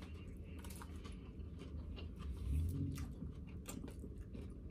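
A person chewing a mouthful of salad and rice, with scattered small clicks from the mouth and from a plastic fork working in a plastic takeout bowl.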